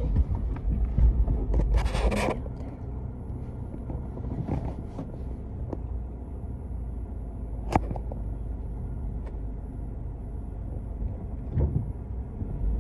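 Vehicle rumbling low inside the cabin while driving on a dirt road. There is a brief hiss about two seconds in and a single sharp click near the middle.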